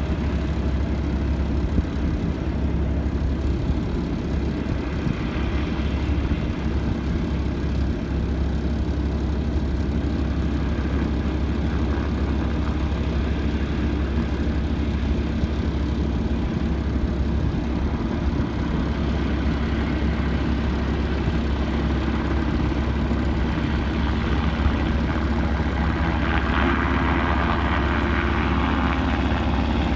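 Helicopter engine and rotor running steadily, a constant deep drone, with a brighter hiss swelling in the last few seconds.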